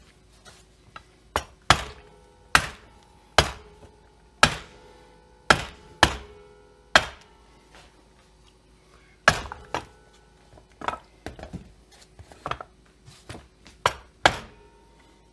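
About a dozen sharp, irregularly spaced hammer taps on a chainsaw's aluminium crankcase halves, driving them together over the dowel pins, with a brief metallic ring after the harder blows.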